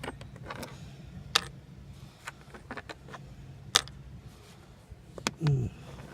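Scattered light clicks and taps of parts and tools being handled, over a steady low hum, with a short falling hum-like vocal sound near the end.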